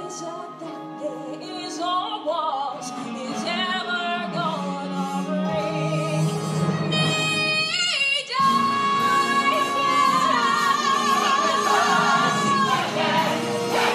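A female musical-theatre singer belting over orchestral accompaniment. Sung phrases climb in a quick run, then about halfway through she holds one loud high note with wide vibrato for about four seconds.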